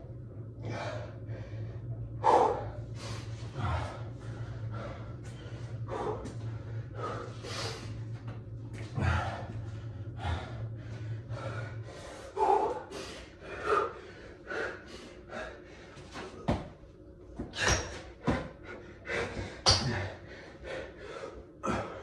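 A man breathing hard and fast under exertion during burpees and squats, with short, sharp breaths one after another and a few thuds as his hands and feet land on the floor. A low steady hum stops about halfway through.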